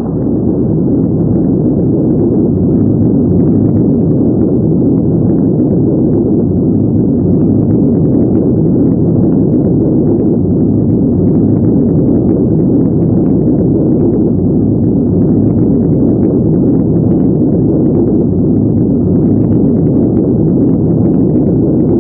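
A car engine running steadily, loud and close, heard as an even rumbling noise.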